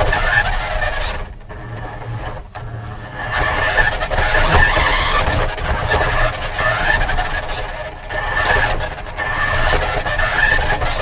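Radio-controlled car running, heard from a camera mounted on it: a motor and drivetrain whine that rises and falls in pitch as the car speeds up and slows, over a steady rattle of tyres and chassis, with a couple of brief dips about one and two and a half seconds in.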